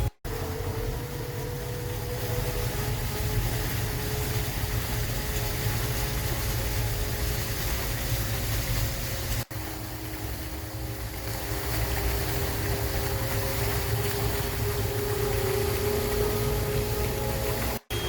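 Eerie sound of an outdoor sound-art installation: a steady low rumble under faint, slowly wavering held tones. It breaks off briefly about nine seconds in.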